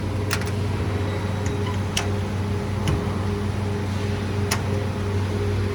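Steady low machinery hum with a constant deep tone and fainter higher tones above it, with three sharp ticks spread through it.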